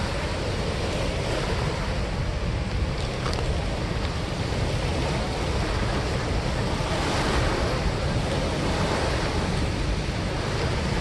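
Steady rush of water pouring through a dam spillway, an even noise with no break.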